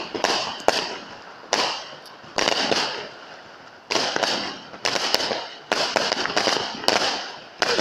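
Aerial fireworks going off in quick succession: a rapid series of sharp bangs, about one or two a second, each fading away over a fraction of a second.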